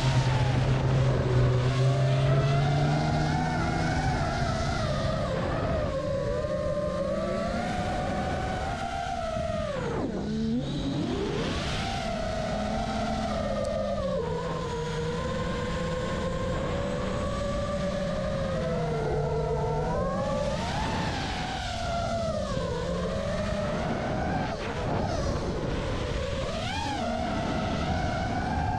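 FPV quadcopter (iFlight Nazgul 5) motors and propellers whining, the pitch rising and falling with throttle, with several sharp drops as the throttle is cut, deepest about ten seconds in. A snowmobile engine's lower drone sits under it for the first few seconds.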